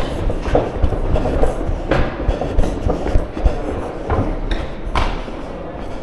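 Train running on its tracks: a steady low rumble with several sharp clacks at uneven intervals.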